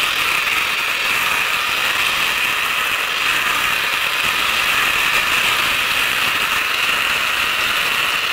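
Strumyk Tosia silage bale wrapper running: the turntable turns a bale while stretch film is drawn off the pre-stretch rollers. Steady, even mechanical sound with no break.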